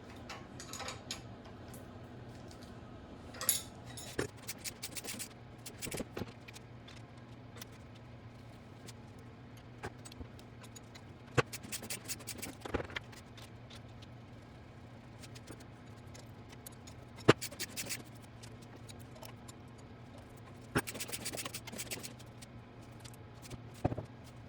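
Scattered metallic clinks, taps and short scrapes of hand tools or parts being handled, over a steady low electrical hum.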